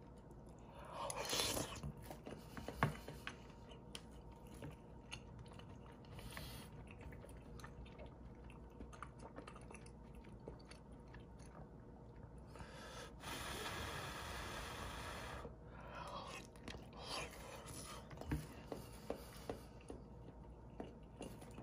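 Close-up eating of instant ramen noodles and dumplings: chewing, with a few longer slurps and some light clicks of the metal spoon and chopsticks against the bowl.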